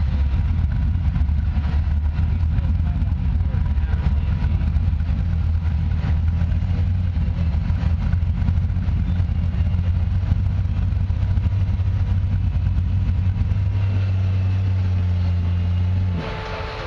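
Off-road rock crawler's engine running steadily at low revs under load as the rig crawls up a rock ledge, cutting off suddenly near the end.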